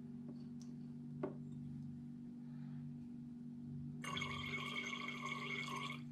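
Faint handling sounds from a titration over a steady low hum: one light click about a second in as the glass Erlenmeyer flask is swirled and handled, then about two seconds of hissing rustle starting about four seconds in as sodium hydroxide is added from a dropper.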